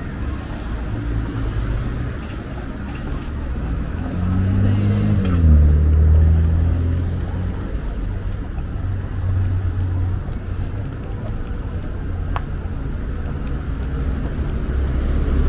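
City street traffic: motor vehicles running and going by, with one passing loudest about five to seven seconds in.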